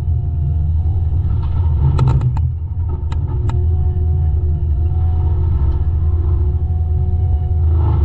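Diesel heavy equipment running steadily with a deep rumble and a steady whine over it. A few sharp cracks or clanks come about two seconds in and again about three seconds in.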